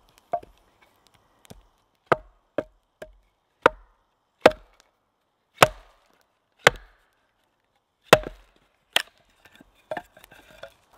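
Axe splitting short pieces of oak: about a dozen sharp wooden knocks, roughly a second apart. They start as light taps and grow harder, with the loudest strikes around the middle, then lighter knocks near the end.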